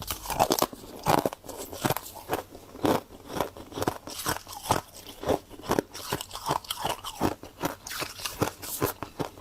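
Close-up crunching and chewing of frost, with crisp crackling bites coming several times a second.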